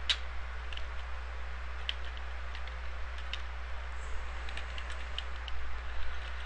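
Typing on a computer keyboard: irregular, widely spaced keystrokes over a steady low hum.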